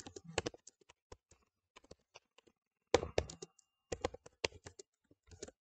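Typing on a computer keyboard: quick runs of key clicks, with a pause of about two seconds near the start before the typing picks up again.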